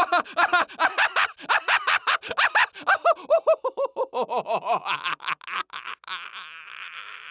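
Human laughter: rapid pitched "ha-ha" bursts, four or five a second, dropping in pitch as the laugh goes on, then trailing off into a breathy, wheezy exhale about six seconds in.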